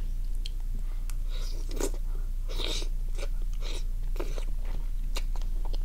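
Close-up mouth sounds of a person biting and chewing steamed squid: irregular wet smacks and crunchy clicks, over a steady low hum.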